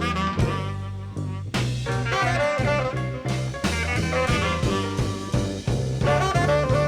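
Live blues band playing an instrumental fill between sung lines: melodic lead lines over a steady bass and drums.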